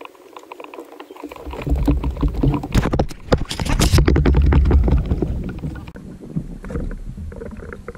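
Rumbling and knocking on an action camera's microphone as the camera is handled aboard a small inflatable fishing boat, loudest in the middle and easing off near the end.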